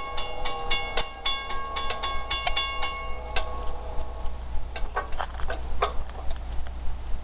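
Railroad grade-crossing warning bell ringing in rapid, evenly spaced strikes, about four a second, stopping about three seconds in. A few fainter clicks follow.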